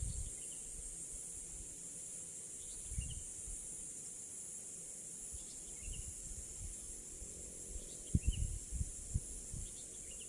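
Steady high-pitched drone of insects such as crickets in the swamp, with a short chirp every two to three seconds. A few low thumps come about eight seconds in.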